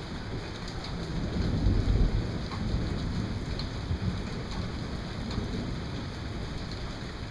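Thunder rumbling, swelling about a second in and rolling off over several seconds, over the steady patter of rain.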